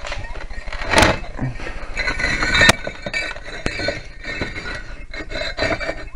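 Firebricks knocking and scraping against each other as they are shifted to close in a makeshift furnace, with two sharp knocks about one and nearly three seconds in and a few lighter clicks after, over a steady hiss.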